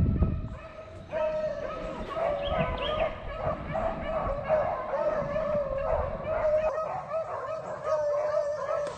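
A pack of beagles baying together, several long voices overlapping without a break. This is a pack in full cry, running a rabbit on its scent trail.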